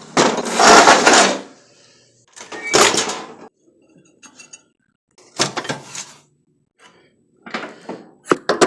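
Metal parts and tools clanking and scraping in four bursts about two seconds apart, with a few sharp clicks near the end.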